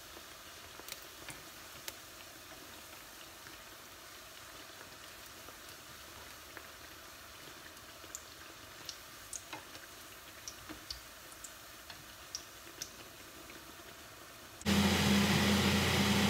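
Youtiao (Chinese fried dough sticks) frying in hot sunflower oil in a wok and being turned with chopsticks: a faint, steady sizzle with scattered sharp ticks. Near the end a louder steady hum, like a fan, starts suddenly.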